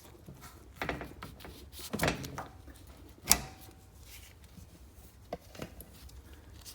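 Screwdriver prying at the metal retaining clip on a lawn tractor's front wheel spindle: scraping and clicking of steel on steel, with one sharp click about three seconds in.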